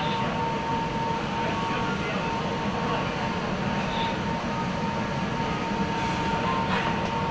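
Metro train running: a steady rumble and hiss with a constant whine that holds one pitch.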